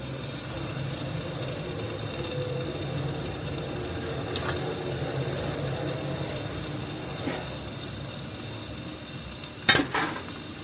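Marinated chicken and bell peppers sizzling inside a closed George Foreman contact grill: a steady hiss with a low hum beneath it. A sharp knock sounds near the end.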